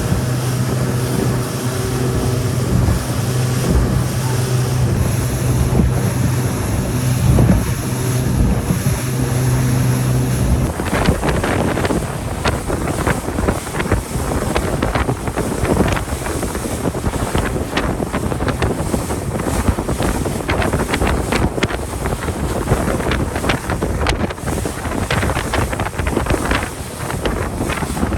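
Boat engine running with a steady hum for about the first ten seconds, then the hum drops away and wind buffeting the microphone and rushing water take over, gusting unevenly.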